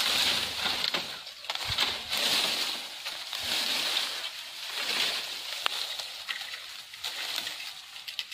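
Bamboo leaves and dry twigs rustling and crackling in repeated surges, about one a second, as a long bamboo pole is hauled through a bamboo thicket, with scattered sharp snaps.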